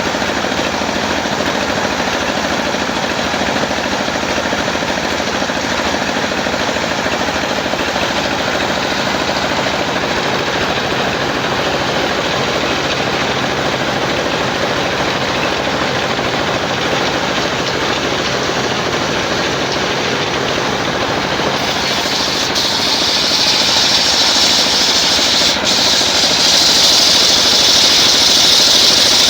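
Engine-driven portable sawmill running steadily; about three-quarters of the way through a loud high-pitched hiss joins in and the sound grows louder, as the saw blade cuts into the coconut-wood log.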